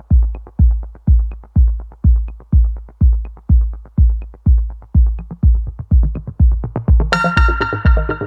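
Electronic background music: a heavy kick drum about twice a second, with synth chords coming in near the end.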